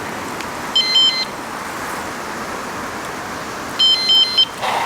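Two short bursts of rapid, high-pitched electronic beeps, about a second in and again near the end, over a steady hiss of rain and road noise.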